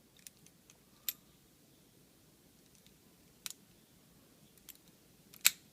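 Five-digit combination padlock being handled, giving a few separate sharp metal clicks, with the loudest one near the end.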